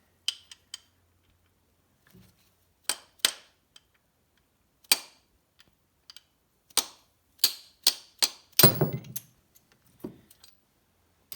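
Hammer tapping on a punch to drive the wrist pin out of a Mercury Sport Jet engine piston. About a dozen sharp taps come at an uneven pace, and the heaviest blow, with a duller thud, lands a little before the end.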